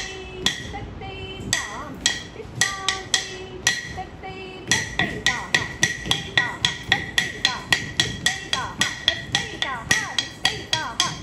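Sharp, ringing percussive strikes keep time for Indian classical dance practice. They come sparse and uneven at first, then settle into a steady beat of about four strikes a second from about five seconds in, with a few short sung or called syllables between the early strikes.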